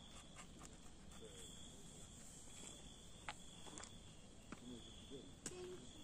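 Faint dusk ambience: insects, likely crickets, chirring steadily in a high pulsing drone, with a few sharp clicks and pops from the campfire.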